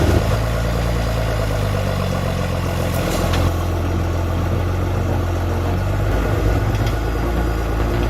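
A heavy machine's engine running steadily at a low, even pitch, with a couple of short knocks.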